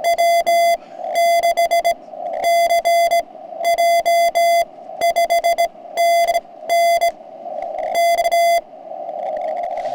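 Morse code sent from a paddle and heard as the portable ham transceiver's sidetone: a loud beep of one steady pitch, keyed on and off in dits and dahs, in about eight quick groups. In the gaps, the receiver's narrow CW-filtered hiss sits at about the same pitch.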